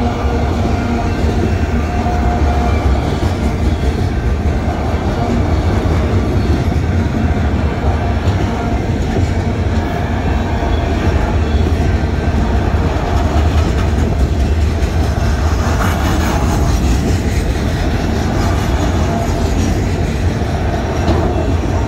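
Freight train of autorack cars rolling past at close range: a loud, steady rumble of steel wheels on the rails with clacking over the rail joints.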